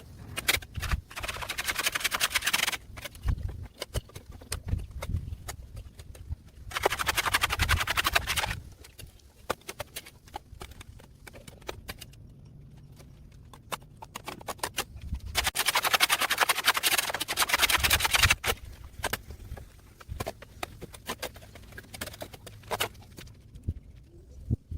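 A shovel scraping and cutting through wet, muddy soil and vegetation, in three long gritty scrapes with scattered knocks and thuds between them.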